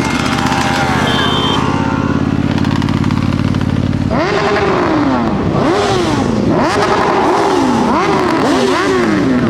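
Motorcycle engine holding a steady note, then, about four seconds in, revved over and over: each time the pitch jumps up quickly and sinks back, a little faster than once a second.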